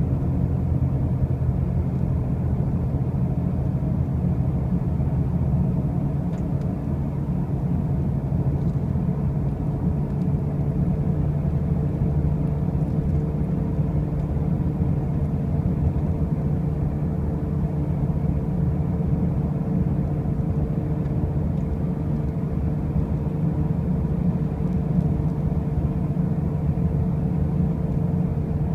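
2005 Pontiac Grand Prix on the move, making a loud, steady low drone with a humming tone on top that grows stronger about halfway through. The noise persists despite brand-new wheel bearings and new tires, and its cause is unknown to the owner.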